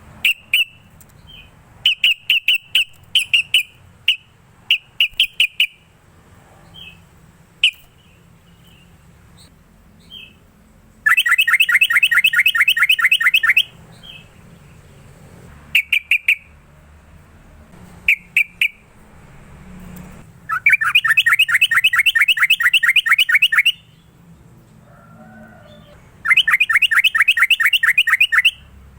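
Yellow-vented bulbul (trucukan) singing: a run of short, sharp notes, then three long, fast chattering trills of two to three seconds each, with scattered single notes between them.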